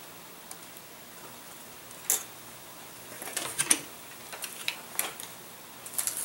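Scattered light taps and clicks of a foam model-plane wing and small plastic parts being handled and set down on a wooden tabletop, with one sharp tap about two seconds in. Near the end, louder clicking and rustling as a packing tape dispenser is picked up.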